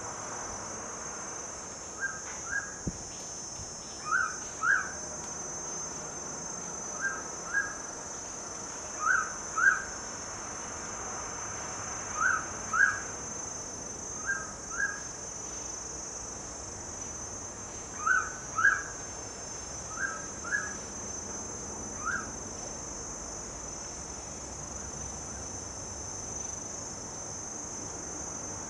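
Mangrove pitta giving its loud double-whistle song: about nine two-note phrases, repeated every two to three seconds and then stopping. A steady high-pitched insect drone runs underneath.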